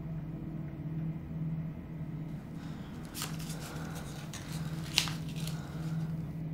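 A low steady hum that swells and fades about once a second, with a soft click about three seconds in and a sharper click about five seconds in.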